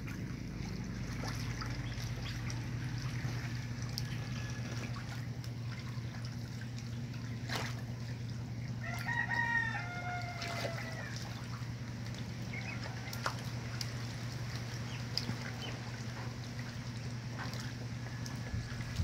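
A rooster crows once about halfway through, a call in several falling segments, over a steady low hum.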